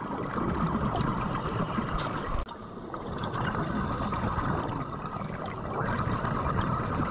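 Underwater ambience recorded by a diver's camera: a steady rush of water with bubbling and gurgling. It drops abruptly in level about two and a half seconds in, then builds back up.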